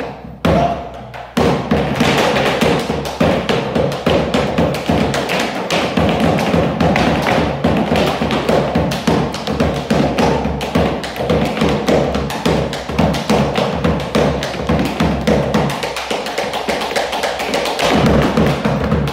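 Malambo zapateo: fast, dense boot stamps and heel-and-toe taps on a wooden floor, with a bombo legüero drum beating along. The footwork picks up in earnest about a second in.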